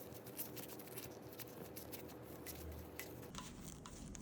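Faint light clicks and handling noise from a small hand tool and metal parts, as the brake-lever bolt on a children's bicycle handlebar is tightened.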